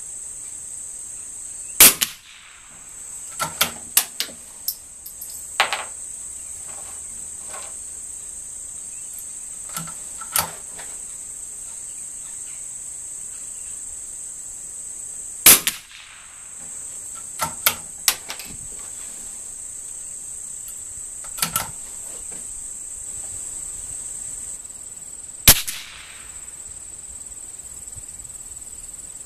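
Three sharp shots from a scoped .22 rimfire bolt-action target rifle, with softer metallic clicks between them as the bolt is worked and a new round is loaded. A steady high chirring of insects runs underneath.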